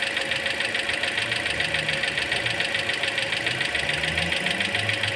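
Toyota Corolla Altis engine idling steadily, with a rapid, even ticking over a low hum.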